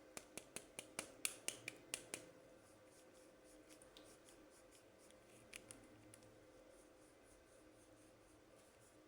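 A quick run of sharp clicks, about five a second, stopping after about two seconds, then near silence broken by a couple of faint clicks.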